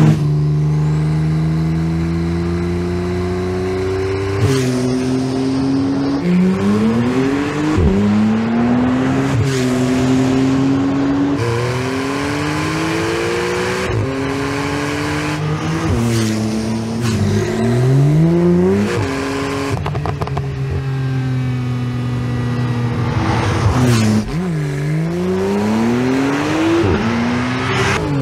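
Porsche 911 Carrera T's twin-turbo 3.0-litre flat-six accelerating through the gears. The engine note climbs and then drops sharply at each upshift, over and over, with a few stretches of steady running in between.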